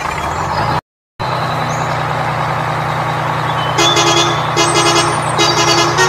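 Truck engine running steadily. From about four seconds in a horn gives several short toots. The sound cuts out for a moment about a second in.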